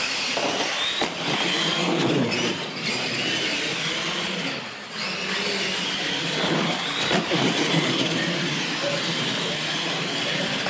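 Two radio-controlled monster trucks racing flat out on a concrete floor. Their motors and gears give a high whine that rises and falls with the throttle, over a steady rush of tyre and drivetrain noise. The sound starts suddenly at the launch and dips briefly about five seconds in.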